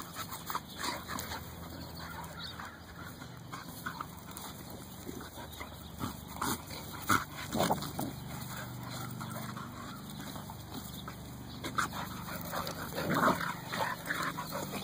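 Two pit bulls vocalizing in scattered short outbursts as they play-fight, loudest about seven and a half seconds in and again near the end.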